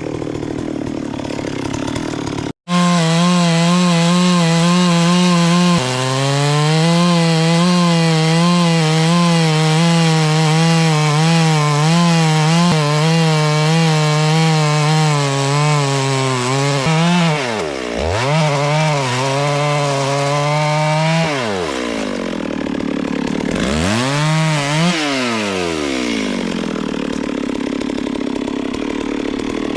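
Two-stroke chainsaw running at high revs while cutting into wood, its pitch wavering under load. There is a moment's break about three seconds in. In the second half the engine note drops sharply and revs back up twice, then runs on rougher and a little quieter.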